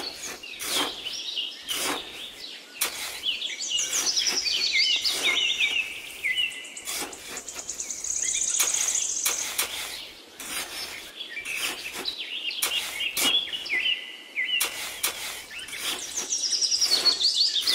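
Birds chirping in repeated runs of short falling notes, with a high trill about eight seconds in. Frequent irregular sharp taps or clicks sound throughout.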